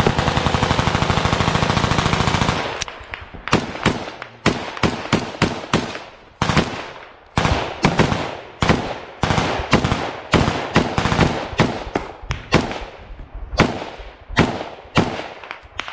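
Close gunfire: a long, very rapid automatic burst lasting almost three seconds, then a steady string of single shots at about two a second, each ringing out briefly after the crack.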